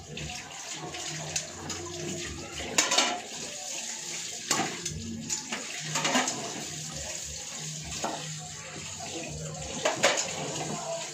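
Kitchen tap running into a sink as things are washed, with several sharp clinks and clatters of dishes or utensils, the loudest about three seconds in and again near the end.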